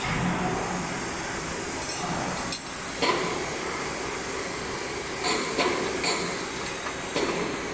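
Sharp metallic clanks, about five of them from three seconds in, as the electric milling cutter of a hydraulic butt fusion machine is handled and seated between the pipe clamps, over a steady mechanical hum.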